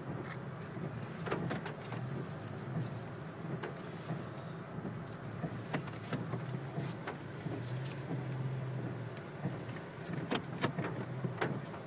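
A vehicle's engine running at low speed during a multi-point turn, a steady low hum with scattered clicks and knocks.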